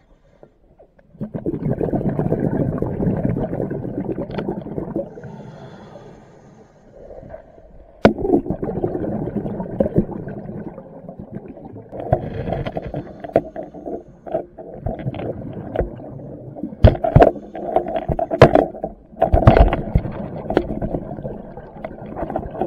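Scuba regulator exhaust: a long rush of exhaled bubbles gurgling and rumbling starting about a second in, then more broken bubble bursts from about 8 s on. Sharp knocks and clicks come through these bursts, most of them near the end.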